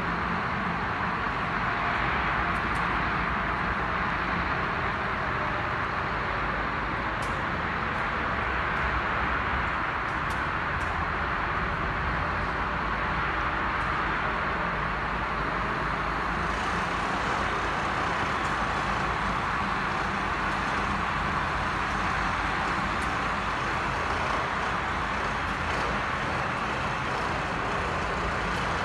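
Two ice resurfacing machines running as they resurface the rink: a steady, even mechanical drone with a few faint ticks.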